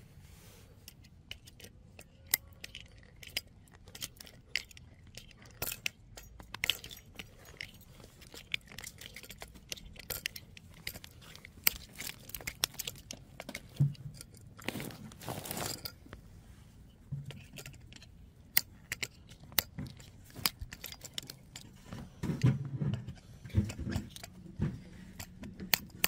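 Irregular small metallic clicks and clinks from a folding multitool being handled and a screw being driven into a mousetrap's base against a tree trunk, with a longer scraping rustle about fifteen seconds in and a few dull knocks near the end.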